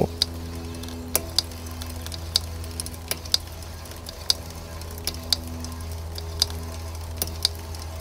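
Mountain bike rear wheel turning on a stand as the pedals are cranked slowly, giving a light click about once a second, some in quick pairs, over a steady low hum. The click comes once per wheel revolution, which the rider puts down to a disc brake rotor knocked out of true and hitting the caliper.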